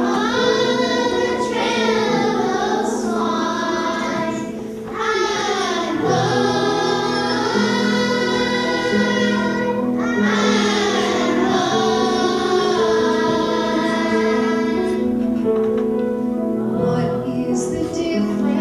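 Children's choir singing a song with piano accompaniment, with a brief break between phrases about five seconds in.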